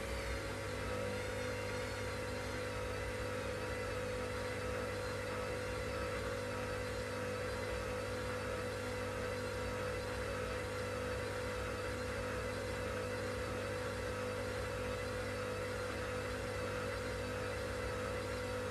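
Washing machine running: a steady motor hum with a constant whine.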